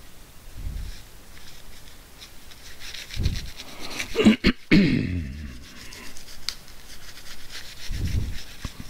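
Tissue wiping and scrubbing a TV remote's circuit board, a soft scratchy rubbing, to clean spilled liquid off with rubbing alcohol. A few low thumps come through, and a louder short burst of noise about halfway through.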